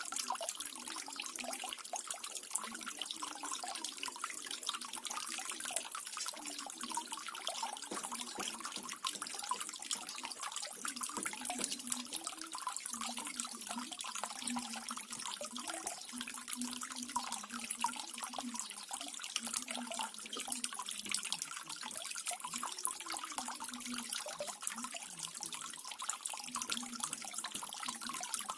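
Small waterfall running steadily, water splashing and trickling with a faint bubbling underneath.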